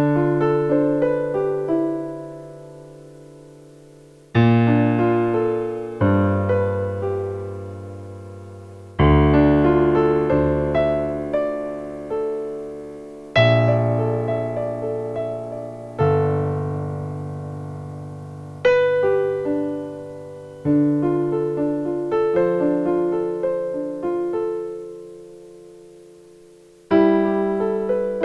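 Solo piano playing a slow piece, with chords struck and left to ring and fade before the next phrase begins.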